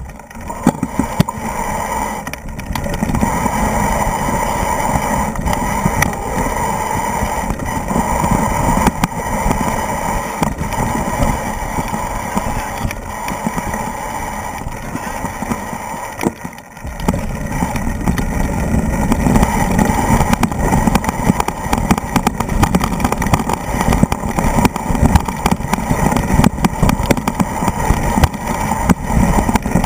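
Mountain bike riding down a rocky dirt trail, heard from an action camera on the move: wind buffets the microphone over a constant rattle and knocking from the bike, its mount and its tyres on loose stones. The noise eases briefly about halfway through.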